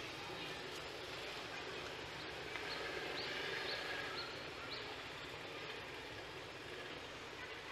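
Steady outdoor background noise, with a few short high chirps between about three and five seconds in.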